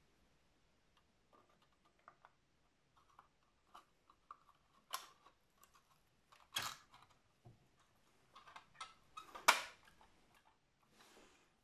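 Plastic parts of a Takom Chieftain Mk.10 model tank kit clicking and tapping as the upper hull is handled and fitted onto the lower hull: scattered light clicks, with two louder knocks about six and a half and nine and a half seconds in.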